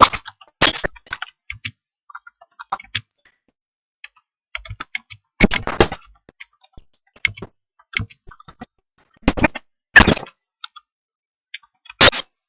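Computer keyboard keystrokes: irregular sharp clicks in small clusters, with a few louder bursts about halfway through, near the end, and between them, all separated by moments of dead silence.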